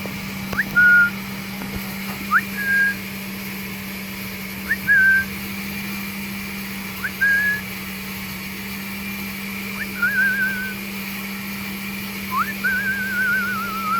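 A person whistling to call a puppy: six short whistles about two seconds apart, each sliding quickly up into a held note, the last two warbling and the final one longest. A steady low hum runs underneath.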